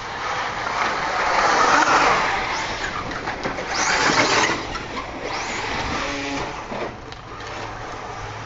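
Two electric-powered 1/8-scale RC buggies racing on a dirt track. They swell loudly as they pass close, once about two seconds in and again about four seconds in, then fade as they run off around the track.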